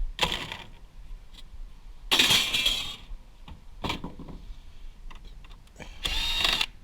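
Tools working on a server blade's metal chassis: scattered metallic clicks and clinks with three short rasping bursts, the loudest about two seconds in.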